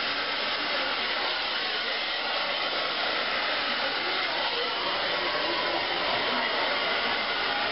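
Handheld blow dryer running steadily, a continuous rush of air with no breaks, as it dries hair wound on a round brush.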